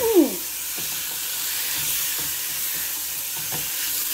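Beef strips sizzling in hot oil in a small saucepan while they release their juices, stirred with a silicone spatula. A few faint spatula knocks against the pan come through the steady hiss.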